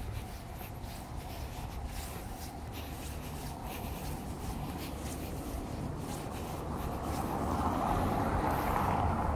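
Night street ambience heard while walking, with low rumble and faint scattered ticks from the handheld recording. A passing vehicle's noise swells over the last two seconds.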